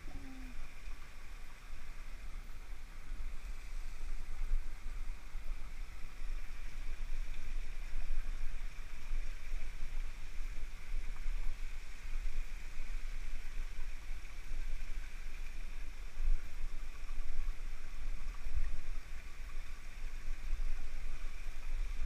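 Wind buffeting the camera microphone in uneven gusts, over a steady high hiss.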